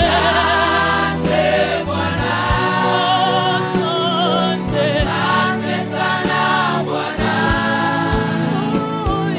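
Gospel-style choir singing over backing music with a steady beat.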